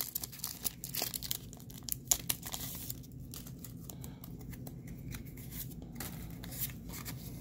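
Foil wrapper of a Pokémon trading-card booster pack being torn open and crinkled, a close-up run of crackling tearing in the first three seconds, loudest about two seconds in. After that it is quieter, with a few scattered clicks as the cards are slid out and handled.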